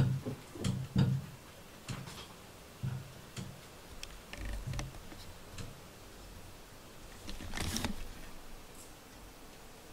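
Scattered light taps and soft thumps in a small room, several in the first five seconds, then a brief rustle about seven and a half seconds in.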